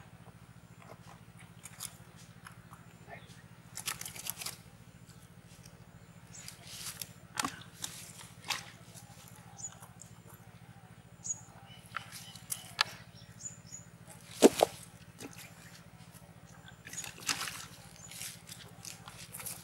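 Irregular short rustles and crackles of fresh leaves and dry ground litter being handled and stuffed into a rubber tire, some coming in quick clusters, the sharpest a little past halfway.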